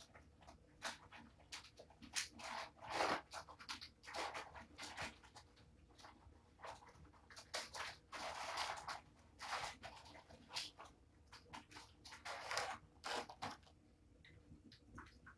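Crinkling and rustling of a plastic pouch being handled and opened by hand, in irregular bursts of up to about a second.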